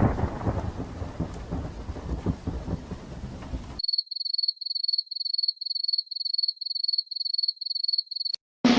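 Rain with rumbling thunder, cut off abruptly a little under four seconds in; then a high-pitched beep repeating about three times a second for some four seconds.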